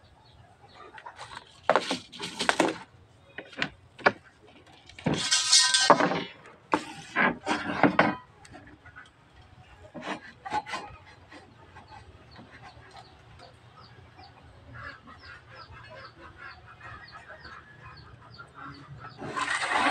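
A metal straightedge and tape measure are handled on a plywood sheet, giving knocks and scrapes, the loudest with a brief ringing tone about five seconds in. Near the end comes a run of light, rapid scratching as a pencil marks a cutting line along the straightedge.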